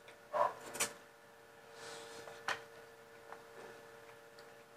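Close-up mukbang eating sounds: mouth smacks and chewing clicks, several sharp ones in the first second and another about two and a half seconds in, then fainter ticks, over a steady hum.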